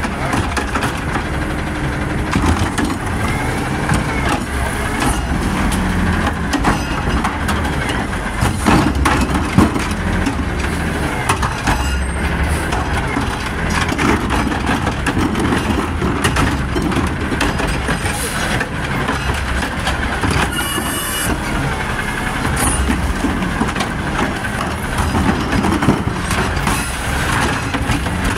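Automated side-loader garbage truck's engine revving hard to work its hydraulic lifting arm, a steady loud mechanical noise. Sharp knocks of the arm and carts come now and then, the loudest about nine and a half seconds in.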